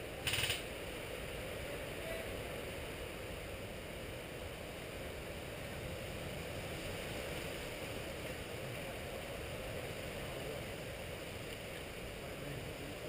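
Steady faint outdoor background hiss with no distinct events, after a short burst of sound just after the start.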